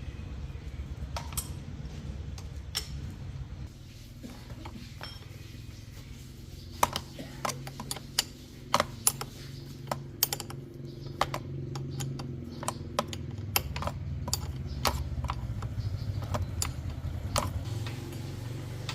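Metal hand tools and metal parts clinking and tapping against each other, irregular sharp clinks that come thick and fast in the middle, over a steady low hum.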